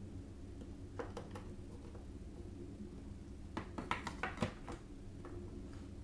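Clicks and light knocks from handling a plastic-and-metal USB 3.0 drive enclosure and its cable: a couple of clicks about a second in, then a quick cluster of sharper clicks and taps around four seconds in, over a steady low hum.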